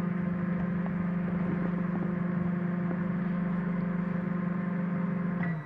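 Microwave oven running with a steady hum while it cooks a cake. Near the end the hum drops away as it switches off, and a short high beep starts.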